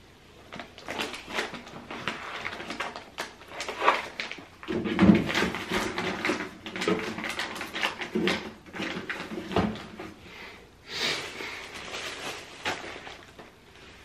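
Irregular clicks, knocks and light clatter of toiletries and containers being set into clear plastic organizer drawers under a bathroom sink, with rustling of packaging and a short rustle about eleven seconds in.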